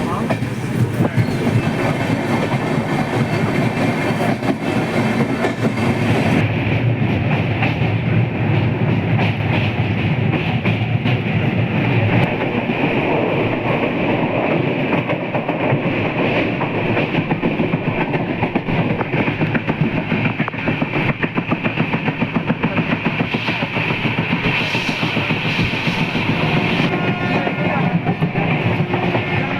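Train running on its rails: a steady rumble of wheels on the track, with a clickety-clack rhythm that comes through plainly around the middle.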